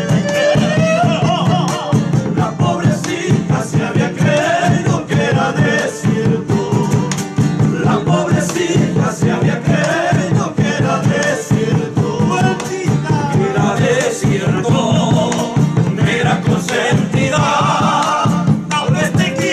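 Several men singing a Bolivian folk song together, accompanied by strummed acoustic guitars and a caja, the large Tarija frame drum, beaten with a stick in a steady rhythm.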